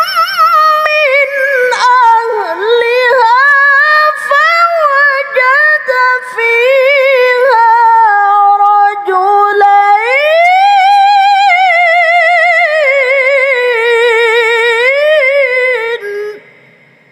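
A woman reciting the Quran in the melodic tilawah style, one long ornamented phrase of held, wavering notes and glides. About ten seconds in she rises to a higher sustained line, and she breaks off about a second before the end.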